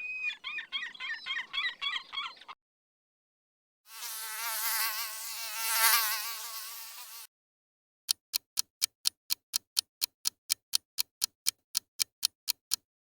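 Seagull calls for the first two seconds or so, then the high, wavering whine of a mosquito in flight for about three seconds, then evenly spaced clock-like ticks, about five a second.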